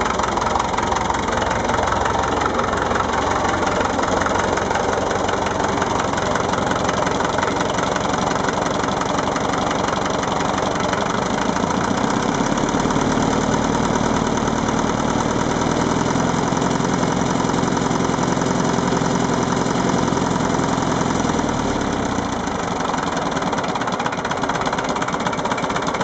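Massey Ferguson 825 tractor engine running steadily. Its speed changes about halfway through and holds there for some ten seconds before settling back.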